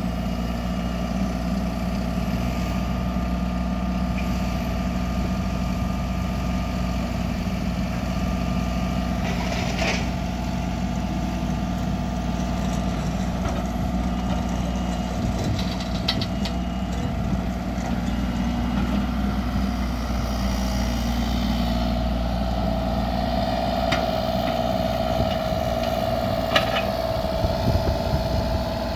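Kubota U35-4 mini excavator's three-cylinder diesel engine running steadily while the hydraulics work the boom, arm and bucket and swing the machine, with a few short clanks.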